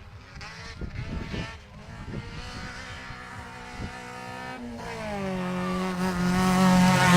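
Rally car engine on a special stage, heard faintly at first with a falling note. About two-thirds through, a car's engine note comes in steady and grows louder as the car approaches.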